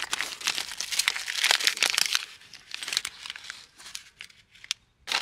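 Paper documents being gathered up and crumpled in the hand, a dense crinkling that thins out after about three seconds, with a short louder crinkle near the end.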